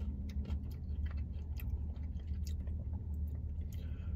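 A person chewing a cold, hard French fry: small, irregular crunching clicks from the mouth, over a steady low hum.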